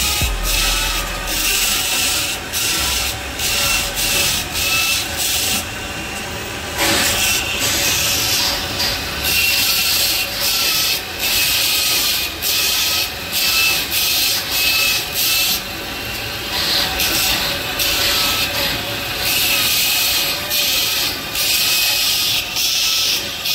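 Steel pliers being ground on a spinning abrasive wheel: a harsh rasping hiss that breaks off and starts again every second or so as the piece is pressed on and lifted. A steady machine hum runs underneath.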